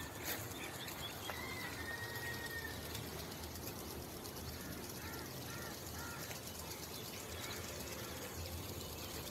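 Outdoor ambience with a steady hiss and faint bird calls: one long, even whistled note near the start and a few short chirps about five seconds in.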